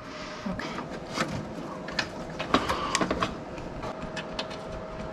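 Scattered light clicks, taps and scrapes of hands and tools working a hood latch cable into place under a car's hood, over a faint steady hum.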